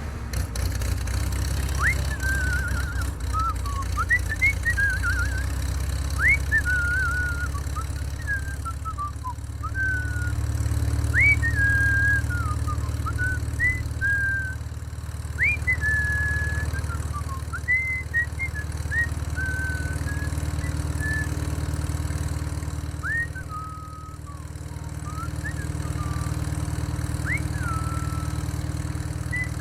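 A small motor humming steadily, with short high chirps that sweep up and level off repeating every second or so over it.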